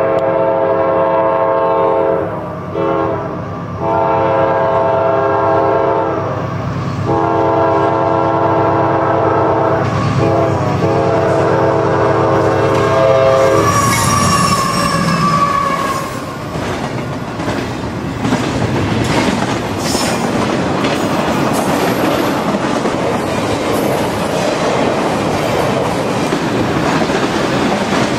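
A CSX train's locomotive horn sounds a chord in several long blasts with short breaks for about the first 13 seconds. The train then rolls past, its wheels clicking steadily over the rail joints.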